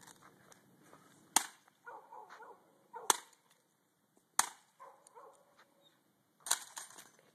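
Sledgehammer blows smashing a plastic-cased laptop: four sharp impacts, spaced about one and a half to two seconds apart, with softer clatter between them.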